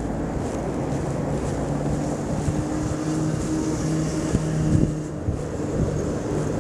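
Outdoor city street noise while walking: wind buffeting the microphone over a low rumble, with a steady engine hum from a car on the road from about two seconds in until about six seconds.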